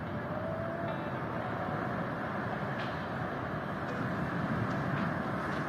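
Steady outdoor background rumble, with a few faint clicks.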